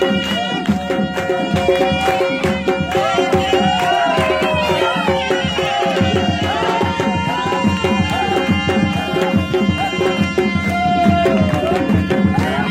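Traditional Gilgiti dance music: fast, dense drumming under a wavering, gliding melody line, with a steady held tone beneath.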